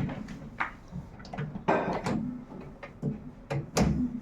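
Dishwasher rack and vessels being handled during loading: a string of sharp knocks and clatters, with a longer scrape about halfway through and a heavier thump near the end.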